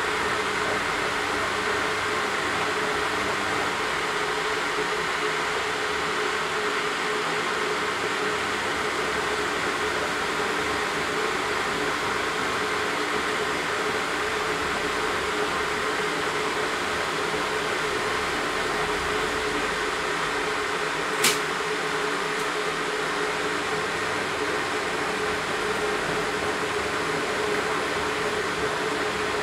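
A steady layered drone of household electrical appliances, a constant hum with a whirring hiss over it, with one sharp click about two-thirds of the way through.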